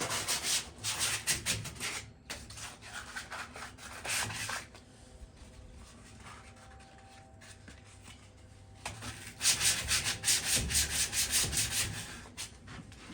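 Sandpaper rubbed by hand in quick back-and-forth strokes over the metal frame of a patio chair, taking off light surface rust before spray painting. The strokes pause for about four seconds in the middle, then start again.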